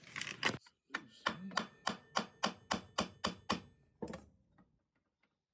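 A quick run of about ten light, evenly paced metallic taps, three or four a second, with a couple of softer taps after. This is the sound of fitting a gilt-brass ormolu mount back onto the table, most likely tapping it home.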